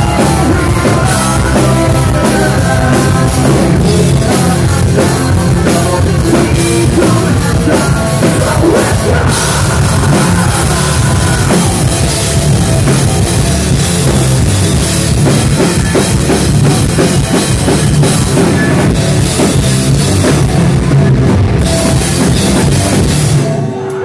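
Live rock band playing loud with drum kit, bass guitar and electric guitars, heard from close to the stage. The band stops abruptly near the end.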